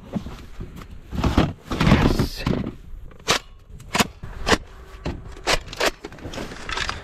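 Plastic storage tote being opened and rummaged through, with scraping and dull knocks of the snowy lid and bin, then about five sharp plastic clicks a second or so apart as a Nerf Elite foam-dart blaster is taken out and handled.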